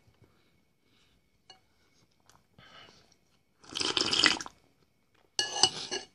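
A person slurping soup broth from a metal spoon: a loud slurp about four seconds in, then a second, shorter slurp near the end, after a few faint mouth clicks.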